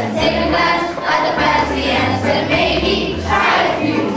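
A group of children singing together over a recorded music backing track with a bass line.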